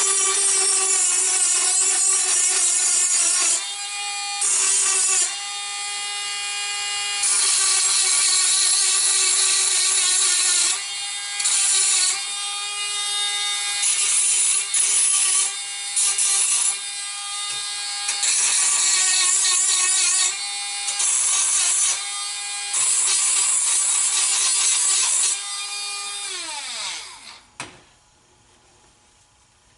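Small electric power tool running at a steady high speed, cleaning up the cut in the battery tray, with repeated stretches of hissy grinding as it bites into the material. Near the end the motor winds down with a falling pitch and stops.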